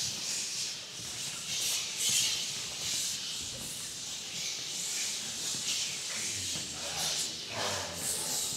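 Choir voices hissing in repeated breathy bursts, a sung imitation of snakes. Low voices begin to come in near the end.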